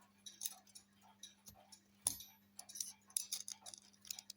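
Small metal parts and tools clicking and tapping irregularly as a plate of a clockwork shaver mechanism is fitted down over its pivots. One sharper metallic click about two seconds in rings briefly. A faint steady low hum runs underneath.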